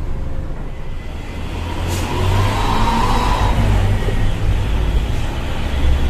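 Diesel engine of a Mitsubishi Fuso Fighter dump truck running, heard from inside the cab with road noise. From about two seconds in it grows louder and stays that way.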